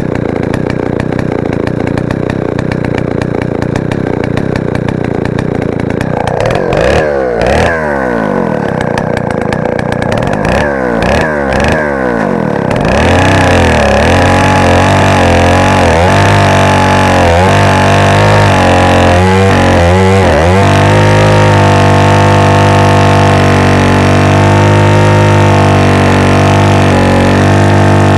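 Stihl 090 AV 137 cc two-stroke chainsaw engine running at idle, then blipped several times, then held at high revs with a few brief dips.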